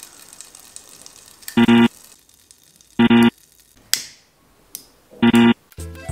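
Three identical short electronic tones, each a fraction of a second long, spaced about a second and a half apart, with a couple of faint clicks between them. A music track with a bass line comes in near the end.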